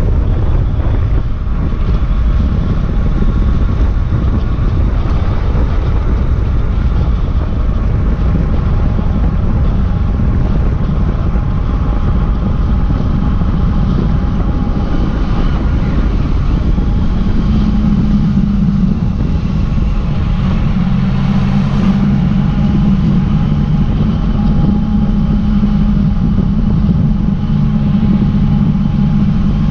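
Yamaha Tracer motorcycle under way: wind rushing over the microphone with the engine's steady drone underneath. About halfway through, the engine note becomes steadier and clearer.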